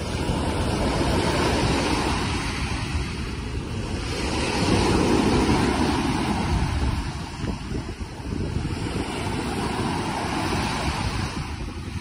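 Small waves breaking and washing up a sandy beach, the surf swelling loudest about five seconds in, with wind gusting on the microphone.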